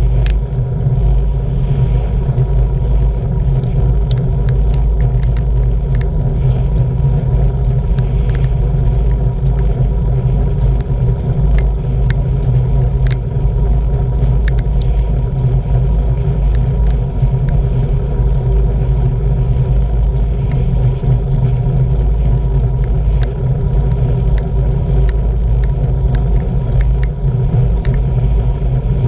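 Wind rumbling over the microphone of a handlebar-mounted camera on a road bike riding at about 20 mph, with a steady hum and scattered small clicks from the bike and road.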